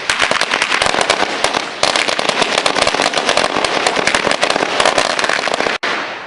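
Consumer fireworks going off in a rapid, continuous barrage of sharp cracks, with a brief lull about two seconds in. The bangs stop abruptly near the end, leaving a fading tail.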